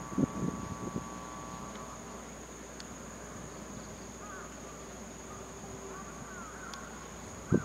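Insects giving a steady, high-pitched drone, with a few faint short chirps in the middle and a single thump near the end.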